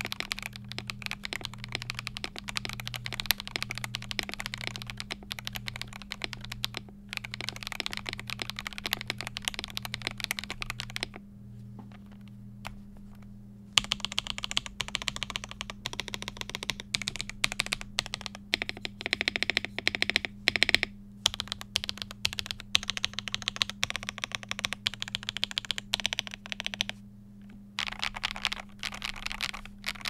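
Typing on a Noir Gear Timeless82 mechanical keyboard with lubed Akko V3 Cream Yellow Pro linear switches, PBT keycaps and a polycarbonate plate with foam dampening: a dense run of keystroke clacks. There is a pause of about three seconds partway through and a shorter one near the end.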